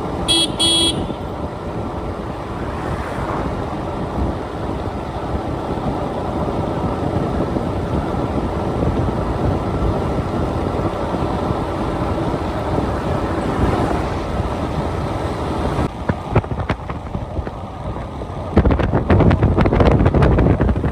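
Steady rumbling noise of a moving vehicle with wind on the microphone. A short high beep sounds just after the start, and the wind buffeting grows louder and choppier near the end.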